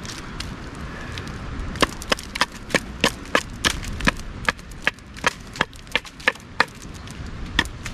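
A knife chopping into a wooden stake to shape it: a steady series of sharp wooden strikes, about three a second, starting about two seconds in.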